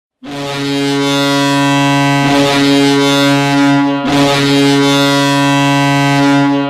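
Ice hockey goal horn sounding in two long, steady, deep blasts, the second starting about four seconds in.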